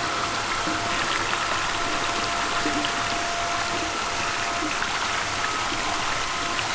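Water churning and splashing as a crowd of farmed freshwater eels thrashes around a lump of paste feed in a tank, with small splashes throughout. Under it runs steady flowing water and a steady high whine.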